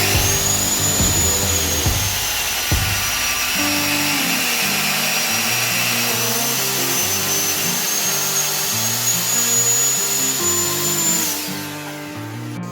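A high-speed electric motor running with a steady high whine, dipping slightly in pitch midway, then cutting off about eleven seconds in. Guitar music plays underneath.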